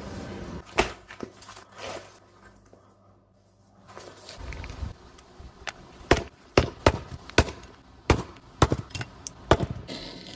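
A series of sharp clicks and knocks, about a dozen, a few near the start and most coming close together in the second half.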